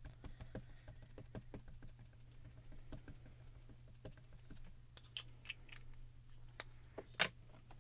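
Faint, quick light tapping of a small dye ink pad being dabbed onto a clear photopolymer stamp, with a couple of sharper plastic clicks near the end.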